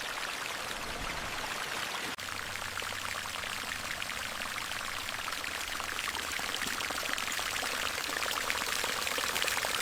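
Water splashing and pouring steadily, with a momentary dropout about two seconds in and a slight swell toward the end.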